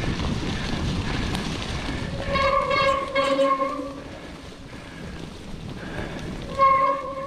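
Mud-fouled disc brakes on a Cube Stereo One22 Race full-suspension mountain bike squeal twice with a steady pitched howl: once about two seconds in for nearly two seconds, and once briefly near the end. Wind and tyre rumble on the microphone are loudest at first. The brakes are barely biting in the mud; it seems to the rider he has no brakes at all.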